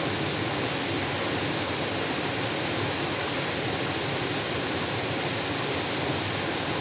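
Rushing water of a small rocky stream cascading over boulders, a steady, even rush.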